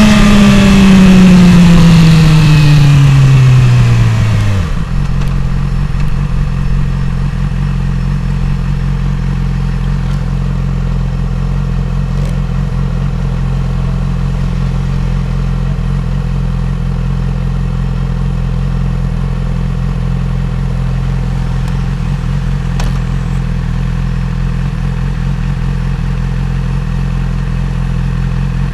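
Yamaha R6 inline-four engine dropping in pitch as the bike slows, with wind rushing over the microphone. About five seconds in the wind stops and the engine settles into a steady idle with the bike at a standstill.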